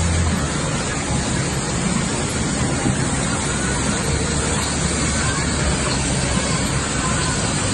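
Müller Martini Primera E 140 saddle stitcher and its Amrys feeders running: a steady, even mechanical din with a constant low hum.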